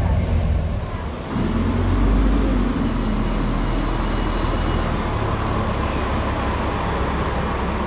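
Volvo B10TL double-decker bus's diesel engine heard from the kerb as the bus pulls away from the stop: a deep rumble that swells about two seconds in, then settles into a steady drone as it drives off. It opens with engine noise heard inside the bus, which cuts off about a second in.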